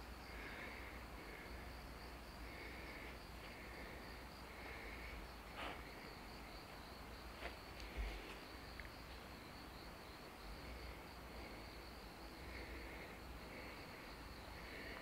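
Faint insects singing: a steady, high pulsing trill, with a lower short buzzing note repeating every second or so. A few soft clicks come around the middle.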